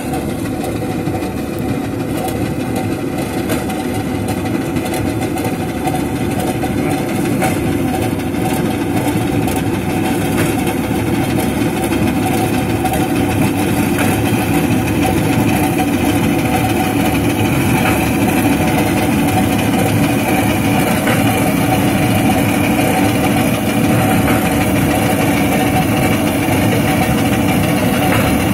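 Engine of a small self-propelled wheat reaper running steadily under load as it cuts standing wheat, growing a little louder over the first several seconds.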